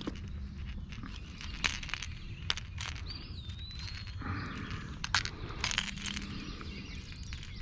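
Scattered small clicks and knocks, with a short falling whistled bird call about three seconds in.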